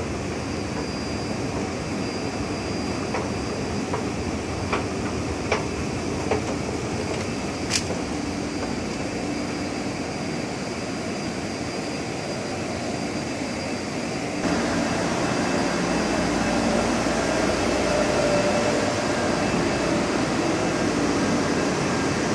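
Steady hum of an underground metro platform, with a few light clicks in the first half. About two-thirds of the way through the sound turns suddenly louder and fuller: the steady running hum of a standing metro train car.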